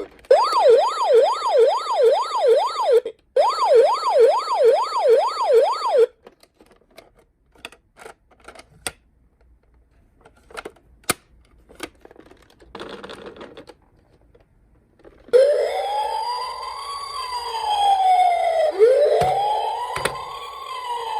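Toy ambulances' electronic sirens. First a fast yelp sweeps up and down about three times a second, with a brief break about three seconds in, and stops about six seconds in. After several seconds of scattered light clicks, a slower wail rises and falls and starts over near the end.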